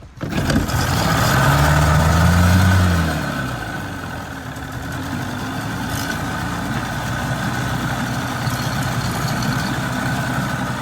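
An engine starting: it flares up in pitch for about two seconds after starting, drops back, then settles into a steady idle.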